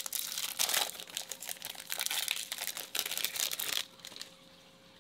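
A Topps Chrome baseball card pack's wrapper crinkling as it is torn open and pulled off the cards, stopping just before four seconds in.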